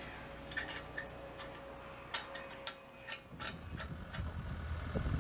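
Scattered light clicks and ticks over a faint low hum, with a thin steady tone that stops about three seconds in. Near the end a rushing machine-and-wind noise swells up.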